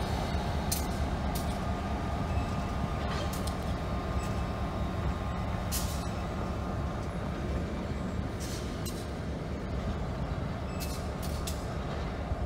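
EMD GP50 diesel locomotive (16-cylinder two-stroke) running with a steady low rumble as it moves a cut of tank cars slowly. Sharp metallic clanks and clicks from the cars come at irregular intervals.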